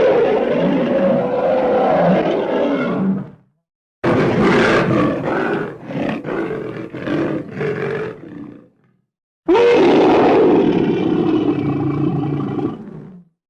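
Lion roaring in three separate clips with dead silence between them: a long sustained roar, then a run of short roars in quick succession, then another long roar. Each clip starts and cuts off abruptly, as edited sound-effect recordings.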